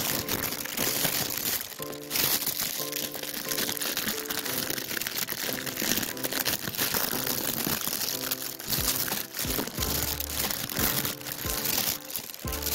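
Thin plastic bag crinkling and rustling as it is handled and opened, over light background music with held notes.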